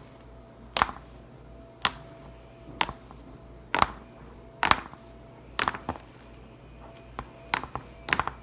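Slime being poked with a finger, making about eight short, sharp pops, roughly one a second.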